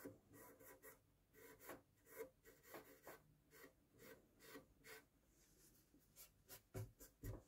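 Faint, irregular swishes of a cloth rubbing along a stringless mandolin fretboard and frets, with two soft knocks near the end.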